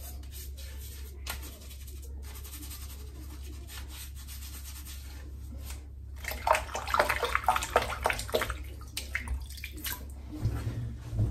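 Faint rubbing of wet hands over soap on the face at first. Then, from about six seconds in, water splashing and trickling for about three seconds, with a few last splashes near the end.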